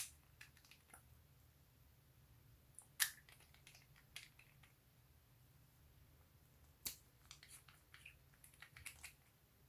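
Glass nail polish bottles and their plastic screw caps being handled: three sharp clicks about three seconds apart, with light ticks in between, as a cap is screwed shut and another bottle is unscrewed.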